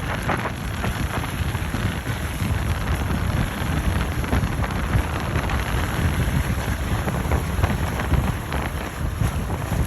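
Wind buffeting the microphone, a rough low rumble over a steady rushing hiss, with no distinct engine note.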